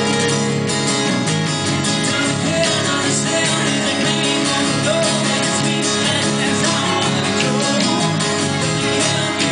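Live acoustic trio playing a song: acoustic guitars strumming, with a voice singing at the microphone.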